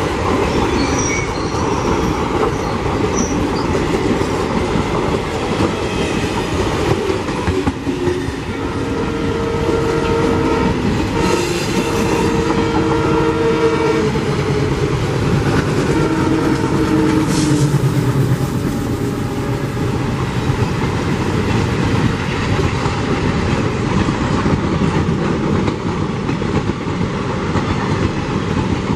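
Indian Railways passenger coaches rolling past at close range, their wheels clacking over the rail joints in a steady loud rumble. A multi-tone diesel locomotive horn sounds for several seconds in the middle, and again more briefly soon after.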